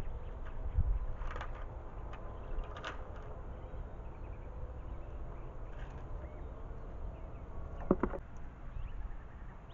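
A fox squirrel cracking and shelling sunflower seeds on a plastic feeder table right at the microphone, with a few sharp clicks. About eight seconds in there is a louder brief clatter as it leaps off the table. Faint bird chirps sound in the background.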